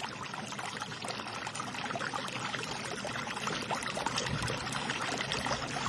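Rushing water of a fast-flowing river over rapids: a steady rush of churning water that grows slightly louder.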